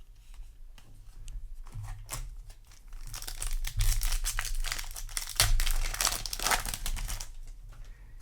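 Foil wrapper of a Yu-Gi-Oh! booster pack being crinkled and torn open: a few scattered crackles at first, then a dense stretch of crinkling lasting about four seconds that dies away near the end.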